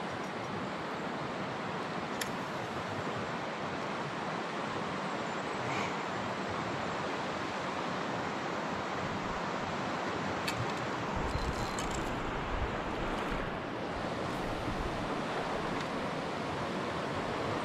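Steady hiss of river water around a kayak. About two-thirds of the way in, a low rumble of wind buffeting the microphone joins it, and there are a few faint clicks.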